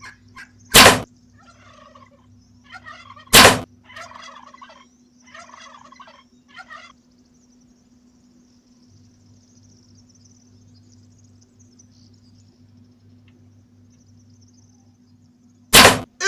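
Wild turkey gobbling, several short rattling calls in the first half. Three loud sharp cracks come about a second in, a few seconds in and near the end.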